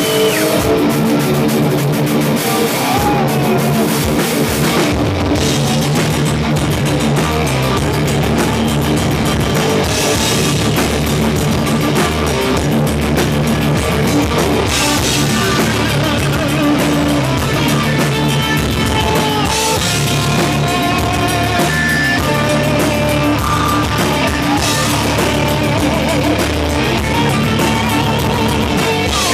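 A live crossover thrash band playing at full volume: distorted electric guitars over a pounding drum kit, recorded up close from the stage.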